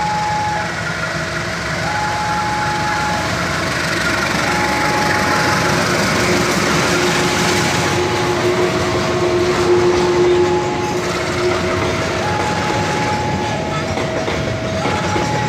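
CC 201 diesel-electric locomotive shunting a string of cement wagons past at low speed: a steady rumble with wheels clattering over the rail joints, loudest about two-thirds of the way through. Through it a two-tone warning alarm alternates between a high and a low tone, each held for about a second.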